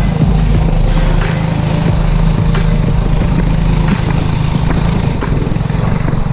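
Small boat motor running steadily at an even speed, with a low engine hum and some clicks and rattles over it.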